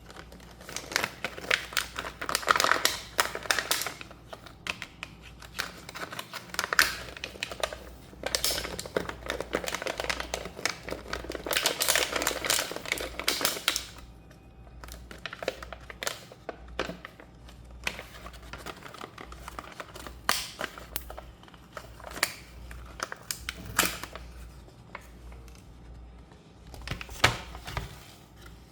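Toy packaging being opened and handled: plastic and cardboard crinkling and rustling, with many small irregular clicks and taps. The crinkling comes in louder stretches in the first half and gives way to sparser clicks and taps later.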